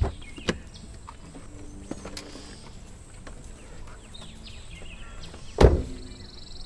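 A car door is unlatched with a sharp click and swung open, followed by a few light knocks as someone climbs out. About five and a half seconds in, the door shuts with a heavy thump. Birds chirp in the background.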